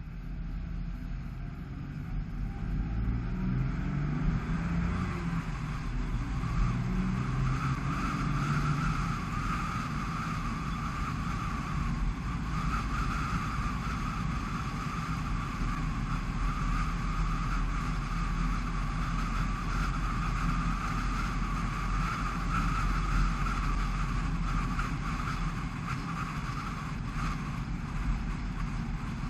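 Dacia Sandero Stepway accelerating, its engine note rising over the first several seconds, then cruising with a steady hiss of tyres on a wet road.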